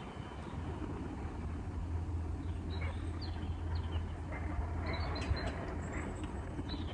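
Low, steady rumble of a passing vehicle that swells through the middle and eases off, with a few faint bird chirps over it.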